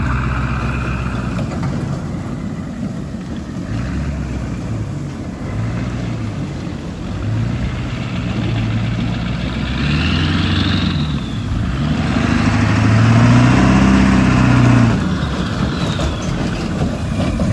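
Ford F-250's 7.3-litre turbo diesel engine running under load while towing a detached steel truck bed on a chain, its revs rising and falling several times and loudest a little past the middle.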